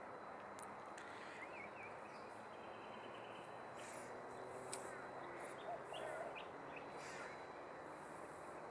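Faint outdoor birdsong: scattered short chirps from several birds over a steady, even background hiss.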